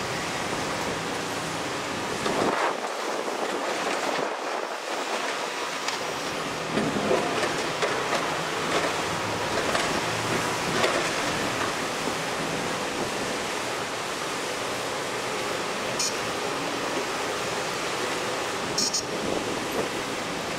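Crawler excavator's diesel engine running at a distance under a steady hiss of wind on the microphone, with a few louder knocks as it digs and loads earth into a dump truck.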